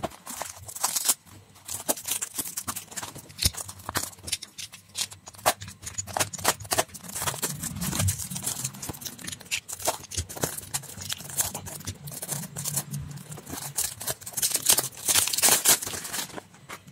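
Hands unwrapping and handling a cellophane-wrapped cardboard box and its paper and plastic packaging: irregular crinkling and crackling with many sharp clicks and taps, densest near the end.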